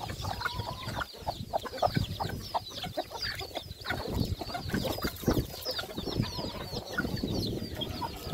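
A flock of farmyard chickens clucking and calling all at once, with many short, high, falling peeps over the top. It is the noise of hungry poultry that won't be quiet until they are fed.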